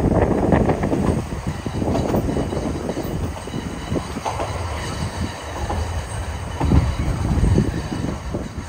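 Train running along the track, heard from on board: a continuous low rumble of the wheels with irregular clattering.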